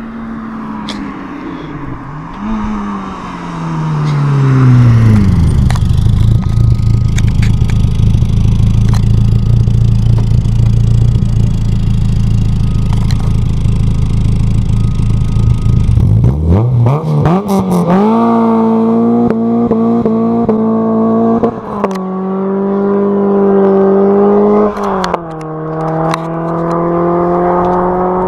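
Renault Clio RS1's four-cylinder engine through a de-catted Group N exhaust. Its revs fall over the first few seconds and then hold deep and loud; about 16 seconds in the pitch rises sharply as the car pulls away, holds steady, and drops in two steps as it changes gear.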